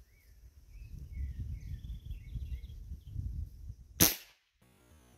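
A single shot from a Rossi R8 VR 5.5 mm regulated PCP air rifle: one sharp crack about four seconds in, after a few seconds of low rumble.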